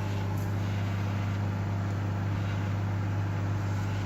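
Microwave oven running, a steady low hum.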